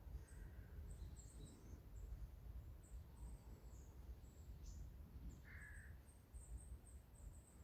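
Faint forest ambience: distant birds calling, with many brief high chirps and a short lower call about five and a half seconds in, over a soft low rumble.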